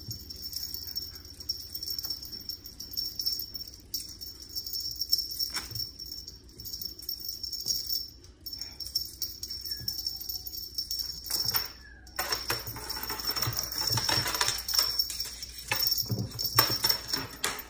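Rustling and scattered light taps as a kitten bats and pounces at a feather wand toy on a tabletop, with a denser spell of rustling near the end.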